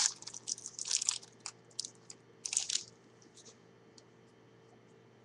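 A 2011 Topps Gridiron Legends football card pack's wrapper being torn open and crinkled by hand, in sharp crinkling bursts through the first second and again near the middle, then only a few faint ticks.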